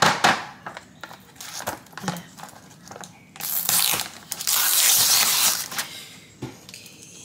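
Clean-up of a spill: scattered clicks and knocks, then about two seconds of loud rustling, scraping noise around the middle.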